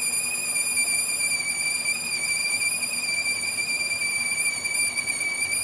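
A steady high-pitched squeal that holds one pitch throughout, with a ring of higher overtones above it.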